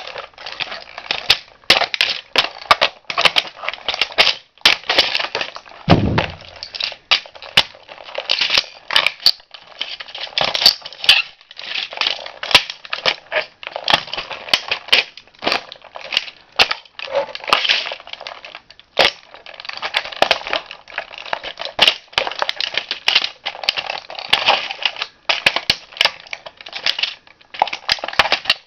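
A toy car being crushed under a shoe, with continuous crackling, crunching and sharp cracks as it breaks, and one heavy low thump about six seconds in.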